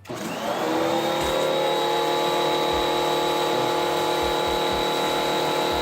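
Sun Joe SPX3000 electric pressure washer's 14.5-amp motor and pump starting as the trigger is squeezed, winding up within the first half second and then running steadily while spraying through the soap nozzle. The pump runs only while the trigger is held, under its Total Stop System.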